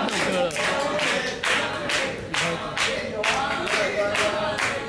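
Hands clapping in a steady beat, about two and a half claps a second, with several voices singing or chanting along.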